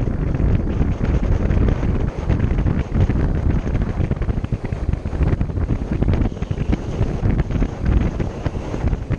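Wind buffeting the microphone of a bike-mounted camera while riding, a loud, uneven rumble with no steady tone.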